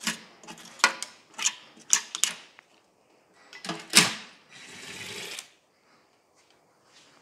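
Metal clicks and clanks of tools on the sump bolts of a Chrysler slant-six engine, with one loud knock about four seconds in. Then a cordless drill-driver runs for about a second, spinning out the last missed sump bolt.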